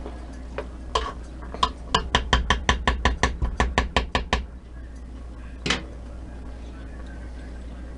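A metal slotted spoon knocking against the rim of a stainless steel pot: a few separate knocks, then a quick run of about six knocks a second for a couple of seconds, and one more sharp knock a little later as the spoon is set down on the glass cooktop.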